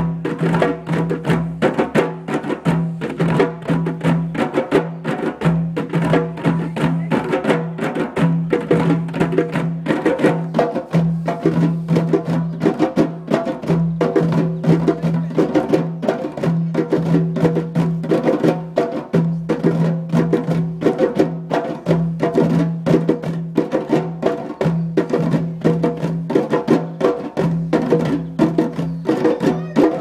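A group of djembes played together by hand in a steady, dense repeating rhythm.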